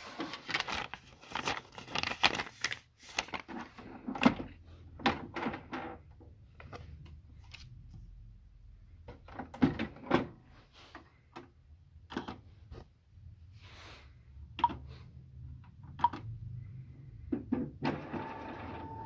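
Plastic clicks and knocks from handling the scanner lid of an Epson all-in-one inkjet printer, in irregular clusters. About a second before the end the printer's mechanism starts running with a steady whine.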